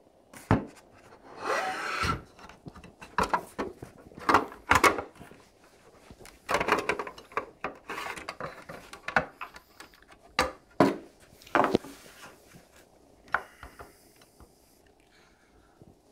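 Plastic back cover being handled and pushed onto a register's stand: a string of sharp knocks and clicks, with two stretches of rubbing and scraping.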